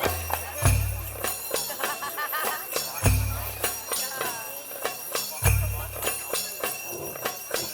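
Music with dense jingling, bell-like percussion over a deep bass note that swells about every two and a half seconds.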